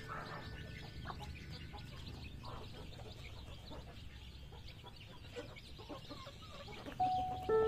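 Domestic chickens clucking over a low steady background, with short scattered calls; a few chiming mallet-like music notes come in near the end.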